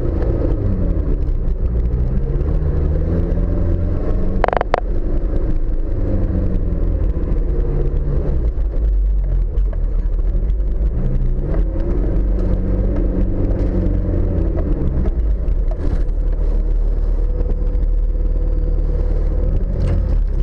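Off-road vehicle engine running under load, its note repeatedly rising and falling as the throttle is opened and eased, over a steady low rumble. A single sharp knock comes about four and a half seconds in.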